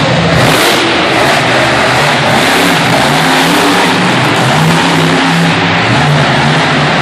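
Monster truck V8 engines revving hard and loud, the engine note rising and falling again and again as the trucks drive around the dirt arena.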